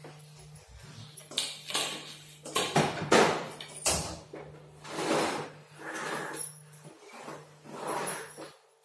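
Floor being cleaned with repeated swishing strokes across the tiles, roughly one a second, over a faint low hum that cuts in and out.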